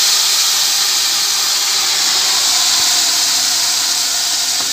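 Milk pouring from a carton onto vermicelli just fried in hot ghee, sizzling loudly and steadily as it boils up on contact with the hot fat and pan.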